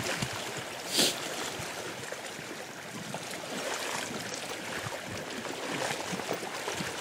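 Shallow river riffle rushing steadily, with the sloshing of legs wading through the current, and a short louder swish about a second in.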